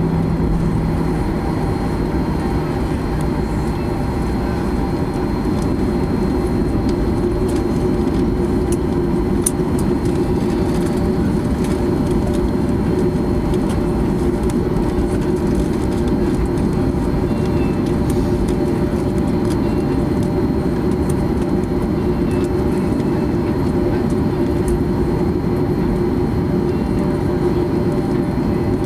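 Inside the cabin of a Boeing 737-800 taxiing, its CFM56-7B engines at idle: a steady low rumble with a constant hum and a thin high whine. A lower hum drops out about a second in.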